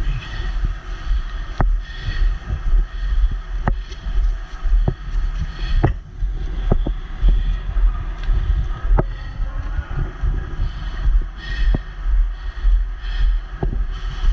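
Wind buffeting the microphone in a steady low rumble, with about ten sharp clicks at irregular intervals.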